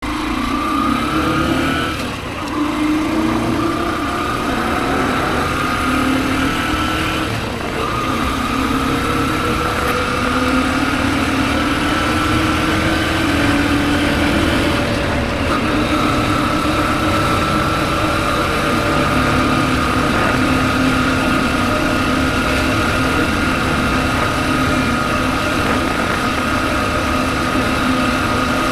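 Motorcycle engine running while riding, its pitch drifting slowly up and down, with two brief drops in level in the first eight seconds.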